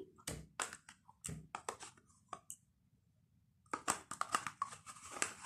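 Small clicks and scrapes of a plastic yogurt cup being opened and its vanilla yogurt spooned out with a metal utensil into a plastic mixing bowl. The sounds come in two clusters with a quiet gap of about a second in the middle.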